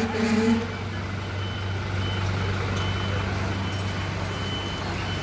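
A fire engine's diesel engine running steadily with a low hum, while its warning beeper sounds short high beeps about once a second, the alarm of a vehicle or aerial arm about to move. A loud low steady tone stops about half a second in.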